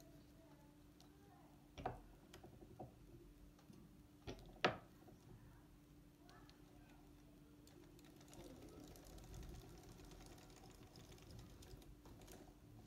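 Foster Victoria circular sock machine: faint, separate metal clicks as the needles are handled, the loudest about four and a half seconds in, then from about eight seconds in a run of fast, light clicking as the cam shell is cranked round the needle cylinder to knit the heel. A faint steady hum lies underneath.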